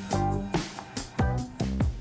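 Upbeat instrumental background music with plucked, pitched notes over a steady rhythm.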